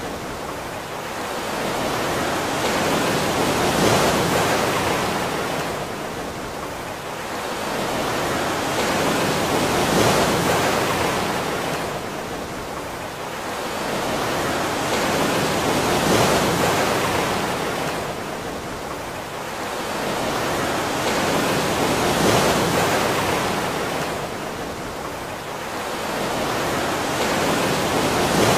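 Rushing water that swells and fades about every six seconds, like surf washing in and out.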